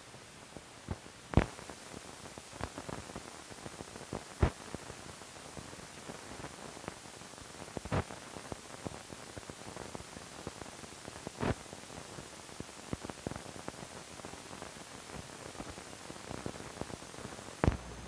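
Surface noise of an old optical film soundtrack with nothing recorded on it: a steady hiss with irregular sharp pops and clicks, a few of them louder than the rest, from dust and scratches on the film.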